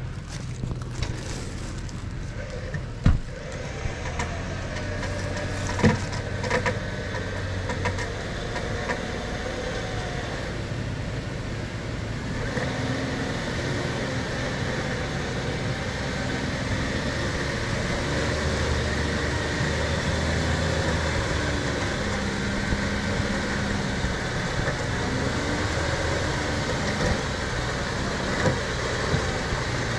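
Jeep Wrangler's engine running in a mud hole, its pitch rising and falling as the throttle is worked. Two sharp knocks come about three and six seconds in.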